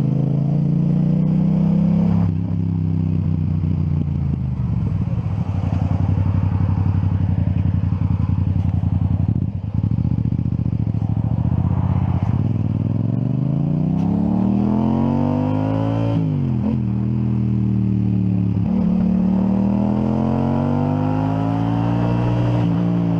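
Motorcycle engine heard from the rider's seat while riding, its pitch climbing and falling as the bike accelerates and eases off. There is a sharp drop in pitch at a gear change about sixteen seconds in, then another rise and fall.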